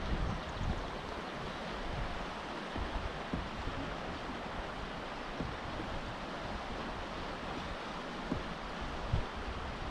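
Wind buffeting the microphone: a steady rushing hiss with irregular low rumbling gusts.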